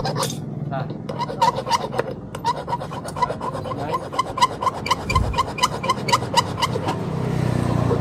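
Rapid, rhythmic rasping strokes, about five a second, each with a short squeak; they run from about a second in until near the end, with a low thump midway.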